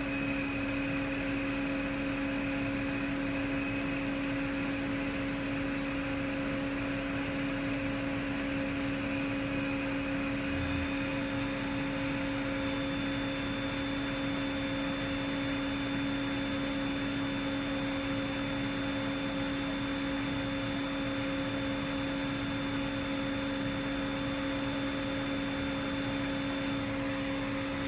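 DMG Mori NLX1500SY CNC turning centre running a boring bar finish pass with high-pressure coolant spraying: a steady hum and hiss with a constant low tone. Higher whining tones join about ten seconds in.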